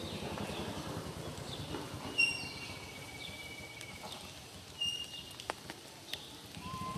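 Short high-pitched animal chirps, about two seconds in and again near five seconds, one drawn out into a longer steady whistle, over a low pulsing hum and a few faint clicks.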